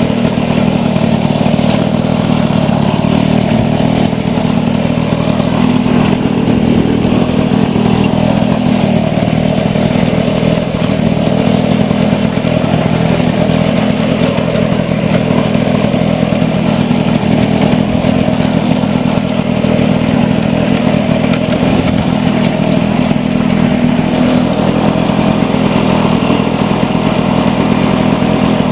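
1980s Lawn-Boy two-stroke mower engine running steadily at a constant speed.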